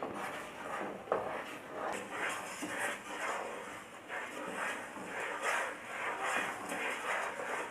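A spoon stirring jaggery syrup in a pan, scraping across the bottom in repeated strokes, with a sharper knock against the pan about a second in.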